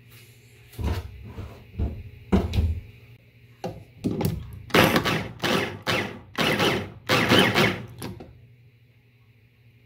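Electric food chopper run in about seven short pulses of roughly half a second each, chopping carrot chunks, after three dull thumps in the first few seconds.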